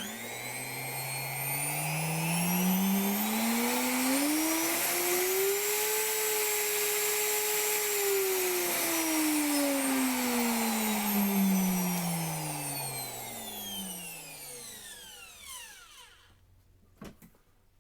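Bosch 1617EVS variable-speed router motor test-run on its newly replaced switch: it starts, its whine climbs in pitch over several seconds to full speed, holds briefly, then falls slowly as the motor winds down and stops.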